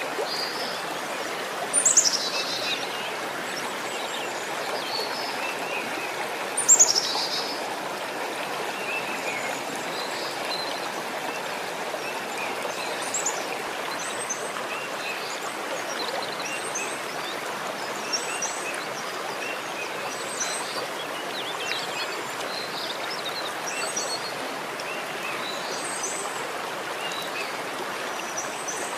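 Steady rush of running water with small birds chirping throughout. Two louder high calls slide down in pitch about 2 and 7 seconds in.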